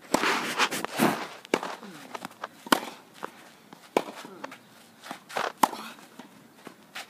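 A tennis ball struck back and forth by rackets in a clay-court rally: sharp hits about every second and a quarter, with footsteps and shoes scuffing and sliding on the clay between them.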